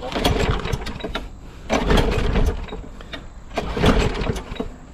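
Petrol walk-behind lawn mower's recoil starter pulled three times, the engine turning over without catching because its fuel tank has been run dry.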